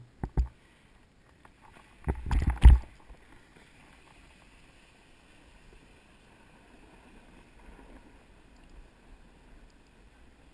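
Hand knocks and rubbing on a GoPro camera, a few light clicks and then a loud cluster of bumps about two seconds in. After that comes a faint steady hiss of a snowboard sliding over groomed snow.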